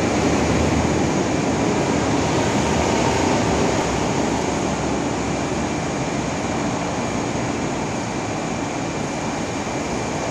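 MTR East Rail electric multiple-unit commuter train running along the platform: a loud, steady rumble of wheels and motors that slowly eases off over the last few seconds.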